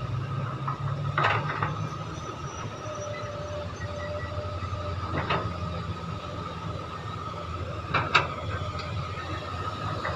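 Mark 5 excavator's engine running steadily with a steady whine over it, at work loading dirt into a dump truck. Three sharp knocks stand out, about a second in, in the middle and near the end.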